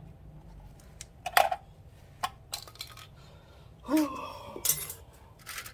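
Light fixture parts clinking and clattering against a sheet-metal tray as the ballast and wiring are pulled out by hand and set down: scattered sharp clinks, the loudest about a second and a half in.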